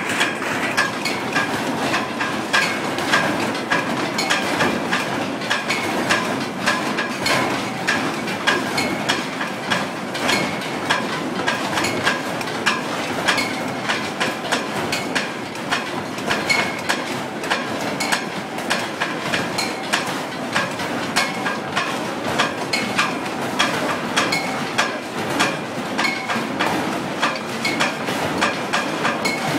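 Continuous irregular banging on metal, several sharp strikes a second, each with a short metallic ring, over a steady background din.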